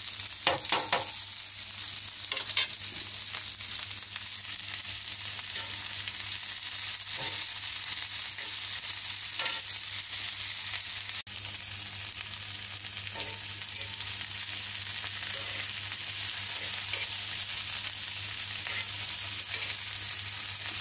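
Sliced green chillies and onion sizzling in hot oil on a flat tawa griddle, a steady hiss, with a metal spoon clicking and scraping against the griddle as the vegetables are stirred; the loudest clicks come about a second in.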